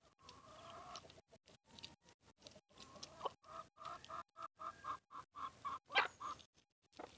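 Domestic hens clucking: a drawn-out call near the start, then a run of quick, even clucks at about four a second. Two sharp clicks cut in, the louder one about six seconds in.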